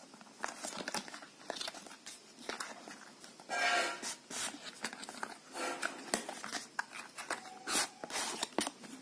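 Cardboard retail box being opened by hand: the card flaps rustle, scrape and click as the inner box is worked loose and slid out, in irregular bursts with the loudest scrape about three and a half seconds in.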